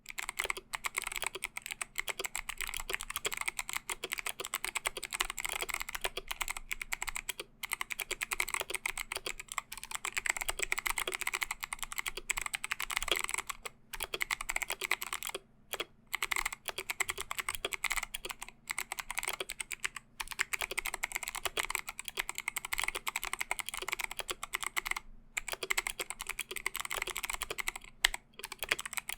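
Steady fast typing on an ID80 mechanical keyboard with stock Kailh BOX Navy clicky switches and DSA keycaps, each keystroke a sharp click, with a few short pauses.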